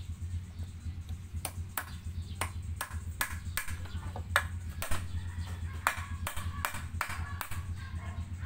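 Claw hammer striking a red clay brick in a steady run of sharp knocks, about two to three a second, starting about a second and a half in.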